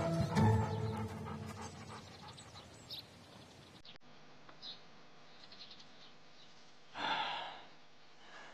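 A husky panting, fading out after a few seconds. Near the end there is one short, loud rush like a breath.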